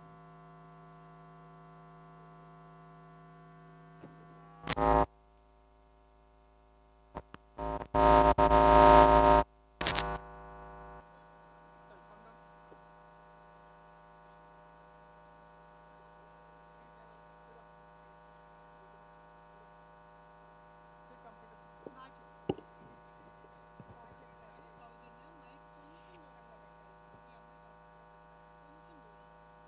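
Steady electrical mains hum from the sound system, with two loud bursts of noise, a short one about five seconds in and a longer one from about eight to ten seconds in. The song has not yet begun.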